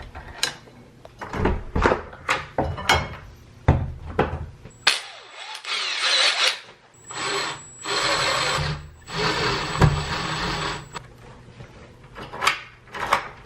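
Metal parts of a deadbolt clicking and knocking as they are fitted, then a cordless drill-driver running in four short bursts with a steady high motor whine, driving the lock's mounting screws, then more clicks near the end.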